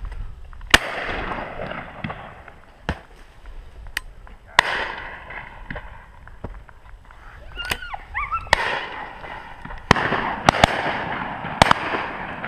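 Shotgun shots on a driven pheasant shoot: a loud, close shot about a second in, then nine or so more from around the line, some in quick pairs, each trailing off in an echo.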